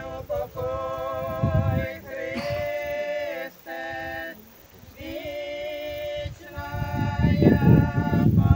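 Men's and women's voices singing together without accompaniment: a slow song in long, steady held notes with short breaks between phrases. Low rumbling bursts come in now and then, loudest near the end.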